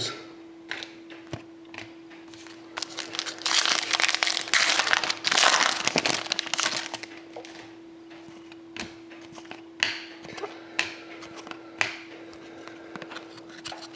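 Plastic trading-card wrapping crinkling in the hands for a few seconds, followed by scattered light clicks and snaps as cards are handled. A faint steady hum runs underneath.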